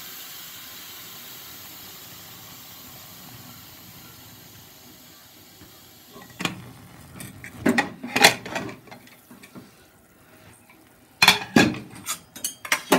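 Pressure cooker letting out its last steam in a steady hiss as its whistle weight is lifted, fading away over about six seconds. Then a run of metal clanks and knocks as the cooker's lid is unlocked and lifted off.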